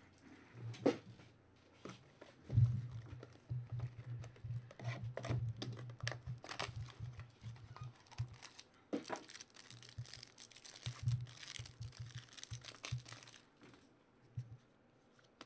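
A trading-card pack being torn open by hand. The foil wrapper tears and crinkles in short, irregular crackles, and the cards are handled in between.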